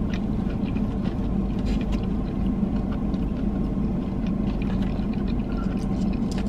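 A parked car running, heard as a steady low hum inside the cabin. Faint soft clicks of chewing sit over it.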